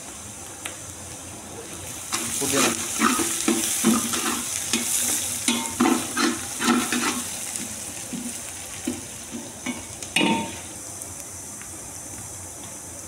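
Sliced onions sizzling in hot oil in a large aluminium pot, stirred with a metal ladle that scrapes against the pot. The stirring is busiest from about two seconds in until past halfway, with one louder scrape about ten seconds in.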